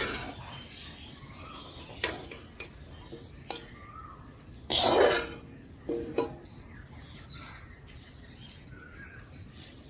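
A metal spoon clinking and scraping against an iron kadai as fried onions are lifted out of the oil, with a few sharp clicks and one longer, louder scrape about five seconds in.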